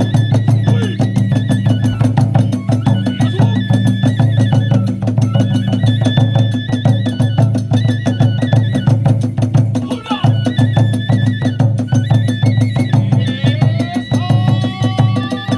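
Live Hiroshima kagura music: the hayashi ensemble plays at a brisk, driving pace. Rapid drum and hand-cymbal strokes run under a high, held flute line.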